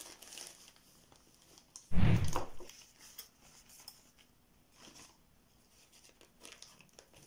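Black plastic bag sheeting rustling and crinkling as hands shape it around a horned hat, with one much louder rustle about two seconds in. Scissors snip through the plastic near the end.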